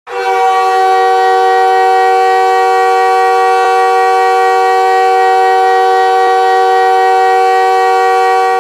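Montréal Canadiens hockey goal horn blaring one long, steady blast of several tones sounding together, held for about eight and a half seconds.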